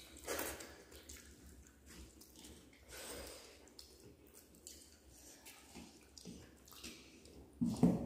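Close-up eating sounds: hands squishing rice with fish curry on steel plates and wet chewing and lip-smacking, in scattered short bursts, with a louder wet smack near the end.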